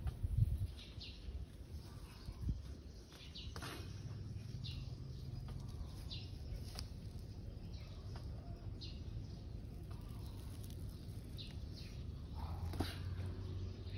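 Birds chirping in the background: short, high calls every second or two over a steady low rumble, with a couple of soft bumps in the first few seconds.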